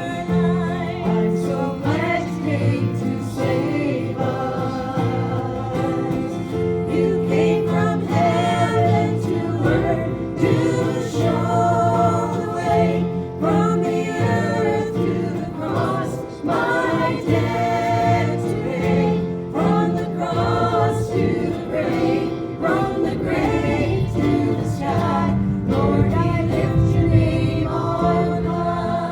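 A group of voices singing a gospel hymn over instrumental accompaniment, with sustained chords and a steady bass line.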